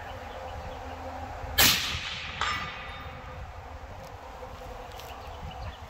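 A single AR-15 rifle shot: one sharp crack about a second and a half in that dies away over about half a second, followed a little under a second later by a fainter second crack with a short ring.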